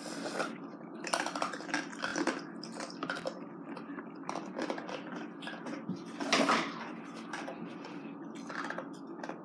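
Scattered small clicks, taps and clinks of tableware and things being handled at a table, with a louder clatter about six and a half seconds in.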